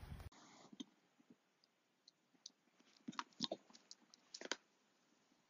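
Faint, scattered clicks and taps over near silence: a single click a little under a second in, then two small clusters of clicks about three and four and a half seconds in.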